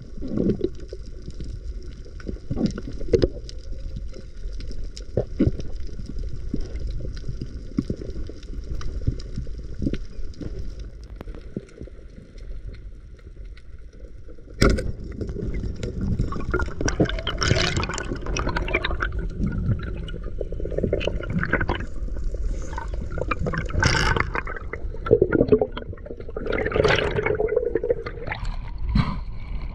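Muffled underwater water noise picked up by a diver's action camera: a low rumble with soft knocks and faint steady tones. About halfway through comes a sharp click, then louder, uneven gurgling and sloshing of water as the diver swims up toward the surface.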